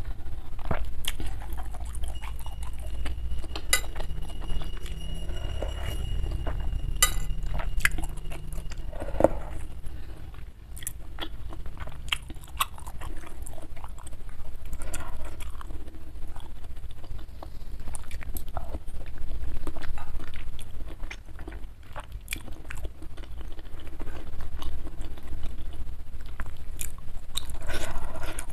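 Close-miked chewing and mouth sounds of someone eating beef meatball soup (bakso), with scattered clicks of a metal spoon against the bowl, one of them ringing on briefly.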